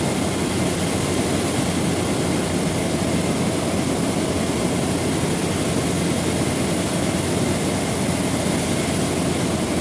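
Steady mechanical running noise: a low rushing hum that holds even throughout, with no strokes, starts or stops.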